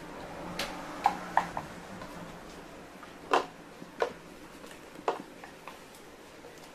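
Chopsticks clicking and tapping against a lacquered rice bowl while eating, a handful of separate sharp clicks spread over several seconds. A heavier knock comes about three and a half seconds in, as the bowl is set down on the table.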